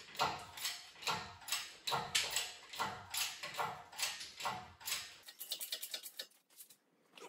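Hydraulic engine hoist being pumped by its hand lever, a steady rhythm of about two strokes a second as it raises the engine out of the car. The pumping stops abruptly about five seconds in, followed by faint ticking.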